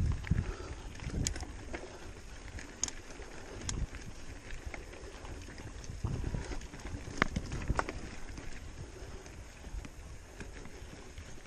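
Mountain bike riding down a rocky trail of loose stones: tyres crunching and rattling over gravel, with many sharp clicks and knocks from stones and the bike, over a low rumble of wind on the microphone.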